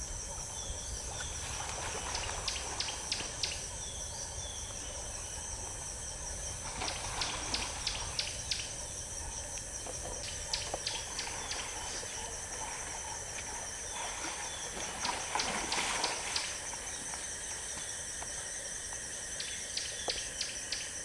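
Insects calling: a steady high trill with repeated runs of rapid clicking chirps, over a low steady rumble. About fifteen seconds in there is a louder burst of splashing water as a hippo heaves itself out of a flooded pan.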